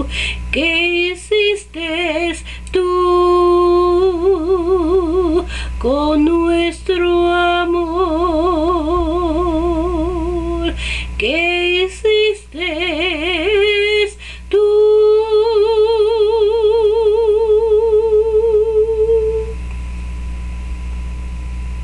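A woman's unaccompanied wordless singing of the song's melody with a wide vibrato, in several phrases; the last note is held for about five seconds and then stops.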